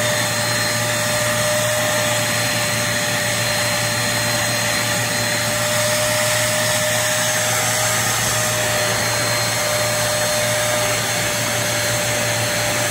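Hoover CleanSlate portable carpet and upholstery spot cleaner running steadily, its suction motor giving an even whine.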